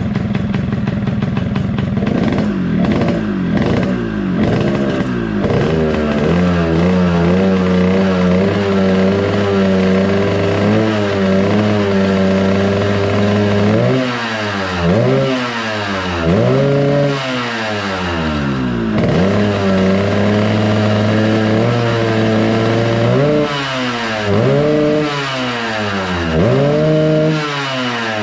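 Yamaha RX-King 135 cc two-stroke single-cylinder engine running at a steady fast idle, then revved in a series of short throttle blips, the pitch climbing and dropping back each time.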